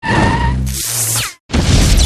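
Loud intro music sting with whoosh sound effects, in two bursts broken by a short silence about a second and a half in.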